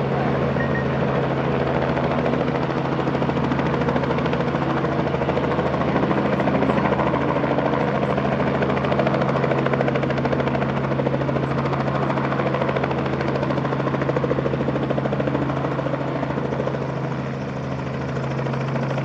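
Aircraft running steadily close by: a constant engine drone with a fast, even pulsing, dipping slightly in loudness near the end.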